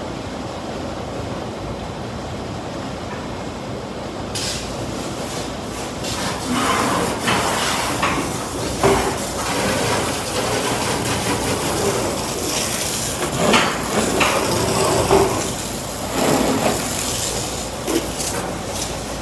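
Automatic car wash machinery running. A steady hum at first, then a hiss of water spray starts suddenly about four seconds in, with irregular knocks and clunks from about six seconds on.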